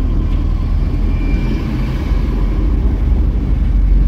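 Steady low rumble of a car driving slowly, heard from inside its cabin: engine and road noise.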